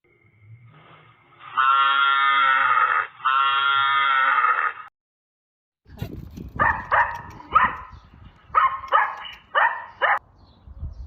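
Animal calls: two long, drawn-out cries one after the other, each about a second and a half. After a short gap comes a quick run of about eight short, sharp calls over a rough low background noise.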